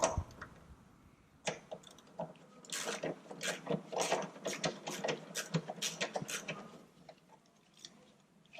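14 mm socket ratchet with an extension clicking in quick repeated strokes, about two to three a second for some five seconds, as it is worked back and forth on an old torque-mount bolt that is not coming loose.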